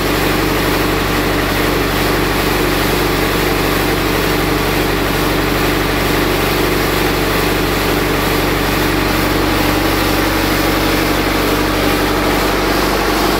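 Mitsubishi auxiliary diesel engine of a ship's generator set, running steadily at a constant speed.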